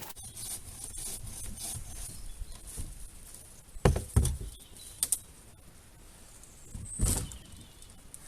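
Cut tree branches rustling and knocking against the boat as they are handled: several heavy thumps, a pair about four seconds in, two quick knocks around five seconds, and another thump near seven seconds.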